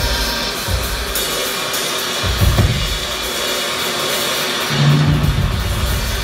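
Live band music: a drum kit with cymbals and hi-hat driving over keyboards and synthesizer. Heavy low bass hits land about two and a half seconds in, and a held low bass note sounds about five seconds in.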